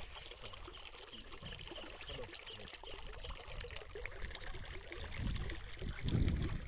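Pesticide spray mix trickling and sloshing in a plastic bucket as it is poured and stirred with a stick, with two dull low bumps near the end.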